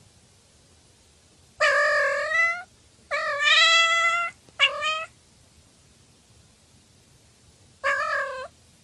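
Tabby cat meowing four times: two long, drawn-out meows about two and three seconds in, a short meow right after them, and a brief closed-mouth 'mmm' near the end.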